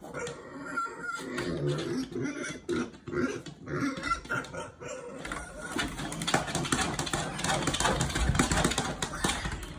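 Pig grunting as it pushes its head through a small plastic pet door, with a dense run of clicks and scraping from the flap and frame in the second half.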